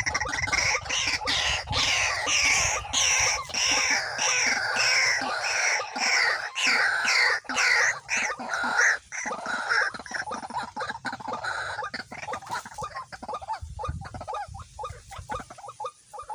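White-breasted waterhen calling: a loud run of repeated downward-sliding notes, about two a second, for roughly the first ten seconds, then fading into scattered clicks.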